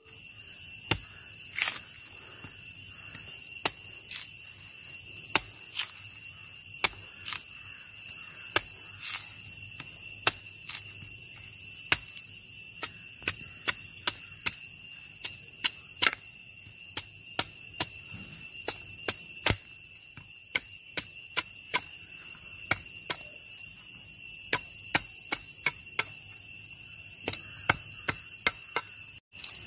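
A machete chopping away the husk of a red tender coconut on a stone: a long run of sharp chops, irregular, about two a second. A steady high-pitched whine sounds behind them.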